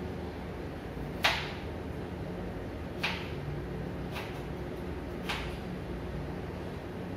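Knife striking a wooden cutting board four times at uneven intervals of a second or so, the first the loudest, over a steady low hum.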